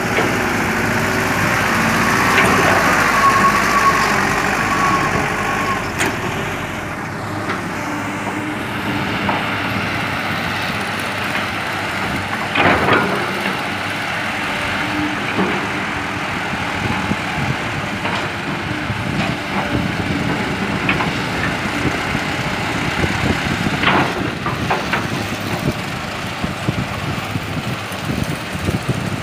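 Diesel engine of an old loaded Mitsubishi dump truck running at low speed, with a few sharp knocks at intervals.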